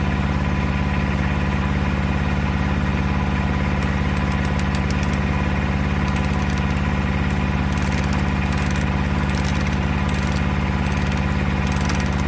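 An engine idling steadily at an even pitch, with no revving.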